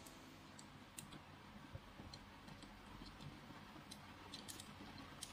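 Faint, scattered clicks of small plastic candy-toy model parts being handled and fitted together, about seven light clicks spread over a few seconds.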